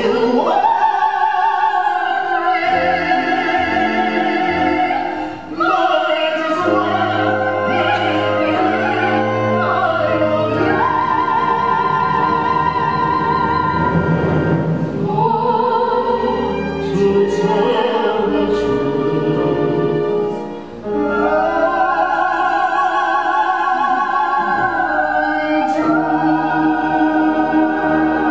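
A soprano singing a musical-theatre song in a trained, operatic style over orchestral accompaniment, with long held notes sung with vibrato and short breaks between phrases.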